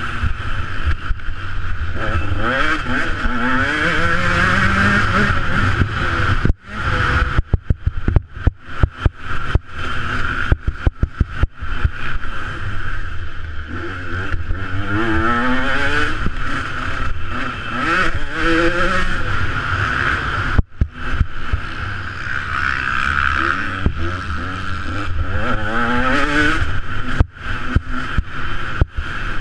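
Motocross dirt bike engine revving up hard through the gears, its pitch climbing again and again, heard from the rider's own helmet camera. In places the sound breaks up into short choppy gaps.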